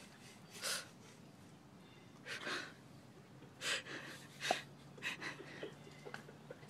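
A person making short hissing "psst" sounds to get the cats' attention, repeated every second or so.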